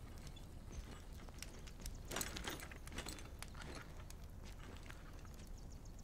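Faint, irregular clicks and knocks over a low rumble, a few of them closer together about two seconds in.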